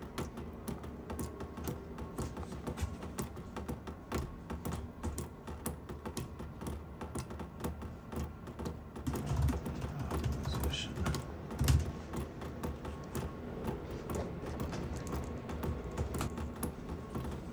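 Typing on a laptop keyboard: rapid, irregular key clicks throughout, with a few dull low thumps near the middle.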